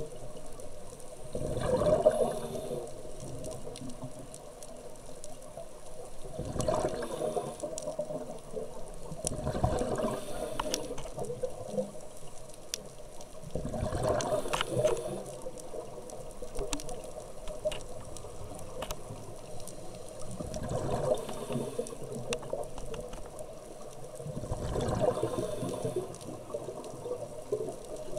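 Scuba diver breathing underwater through a regulator: about six bubbly exhalations, each a few seconds long and a few seconds apart, over a steady low hum.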